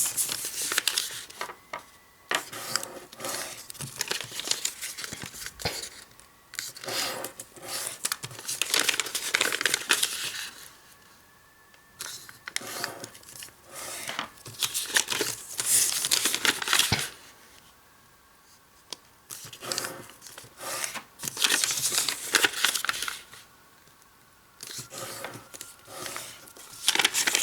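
A sheet of origami paper being folded, creased and unfolded by hand: bursts of crinkling and rustling paper and fingernails running along creases, with short pauses between folds.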